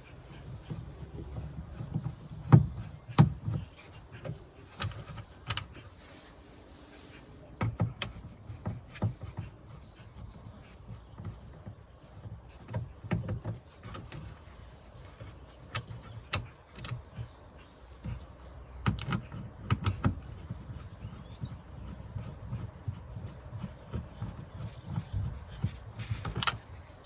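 Scattered clicks, taps and knocks of hands and tools working on the inner parts of a Land Rover Freelander 2 rear door with its trim panel off. The sharpest knocks come in small clusters a few seconds apart.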